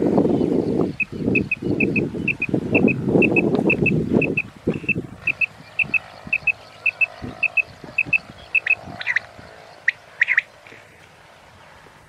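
Quail calling: a high double chirp repeated about twice a second, with two louder calls near the end. Rustling grass through the first third.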